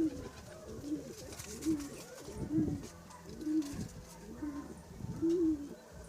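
Domestic pigeons cooing: short, low coos repeating about once a second.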